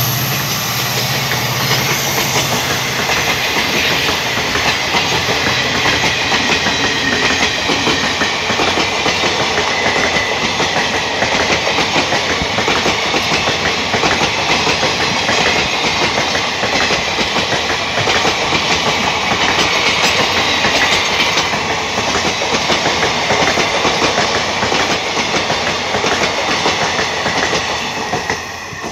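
Train of ICF passenger coaches passing close at speed: a steady rush of wheel and rail noise with continuous clickety-clack over the rail joints. The drone of the WDP4D diesel locomotive's engine fades away in the first few seconds, and the noise drops as the last coach goes by near the end.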